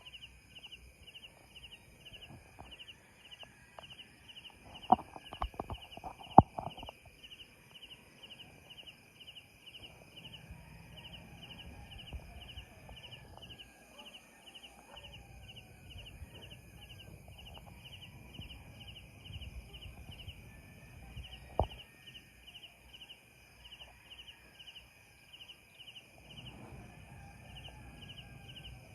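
Sharp pops and cracks from a burning building, a cluster of them about five to seven seconds in and one more later on, with a low rumble in between. A steady, rhythmic high chirping runs underneath.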